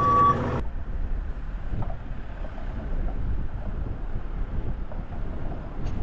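Wind buffeting the microphone over a low rumble. It opens with the tail of a JCB telehandler's reversing beep and engine, cut off sharply about half a second in.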